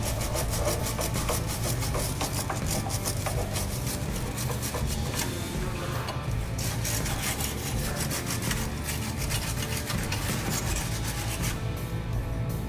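Steel wire brush scrubbing the rusted threaded stud of a car's stabilizer link in rapid back-and-forth strokes that stop near the end, over background music.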